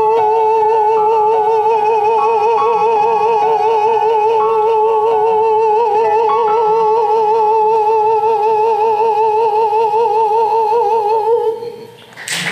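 A tenor holds one long closing note with a steady vibrato for about eleven seconds over a quiet accompaniment whose chords change underneath, then releases it. Audience applause breaks out just at the end.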